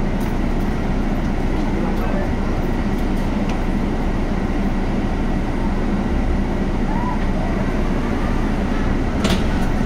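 Cabin noise inside a Scania natural-gas articulated city bus: a steady low engine drone with a constant hum, with a short sharp click about nine seconds in.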